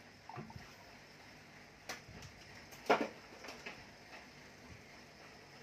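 A few short knocks and clicks of handling, hands moving wires and metal motors on a workbench, the loudest about three seconds in.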